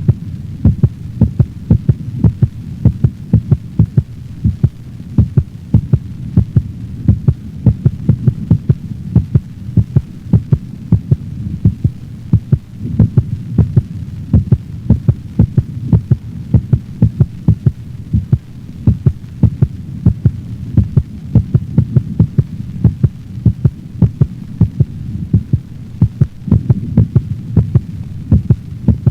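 A dog's heartbeat, recorded for auscultation: repeating lub-dub beats over a steady low hum.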